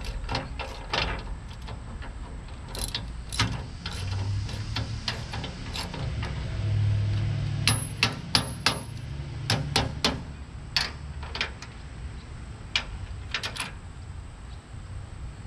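An 18 mm wrench and channel-lock pliers clicking and clinking against the steel bolt and stabilization bracket of a hitch-mounted motorcycle carrier as the bracket is tightened onto the hitch shank. The clicks are sharp and irregular, coming in quick runs at times.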